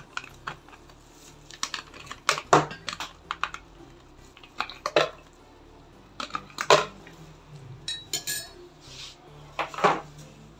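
Ice cubes being knocked out of a plastic ice-cube tray with a metal spoon and dropping into a plastic blender jar: a dozen or so irregular sharp knocks and clinks of spoon on tray and ice on plastic.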